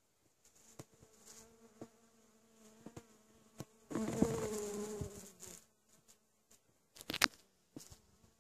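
Honeybees buzzing as they forage on thistle flowers, a steady low hum. About four seconds in, a bee buzzes close to the microphone, much louder for about a second and a half. A couple of sharp knocks come about seven seconds in.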